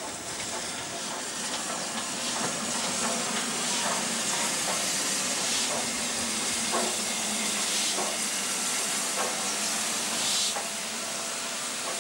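Steam locomotive Flying Scotsman, the LNER A3 Pacific 4472, passing close by with loud hissing steam and a few knocks from its wheels and running gear. The hiss eases off near the end.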